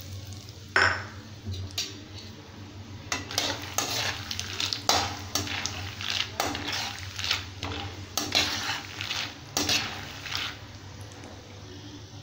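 A metal slotted ladle stirring and scraping raw peanuts around a metal kadai as they fry in hot oil: a run of repeated scrapes and clinks, thickest through the middle, over the frying oil's sizzle.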